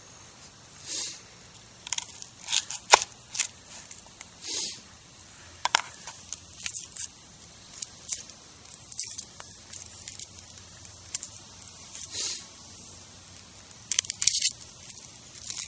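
Dry, papery onion skin crackling and tearing as a yellow onion is peeled by hand, in short irregular rustles. The loudest crackles come about three seconds in and again near the end.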